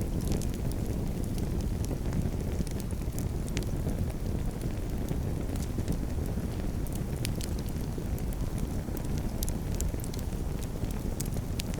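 Campfire crackling: irregular sharp pops and snaps of burning wood over a steady low rush.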